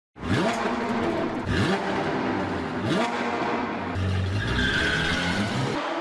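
Car engine revving in three quick rising runs as it accelerates, with a tyre squeal from about four and a half seconds in and a low rumble that cuts off just before the end.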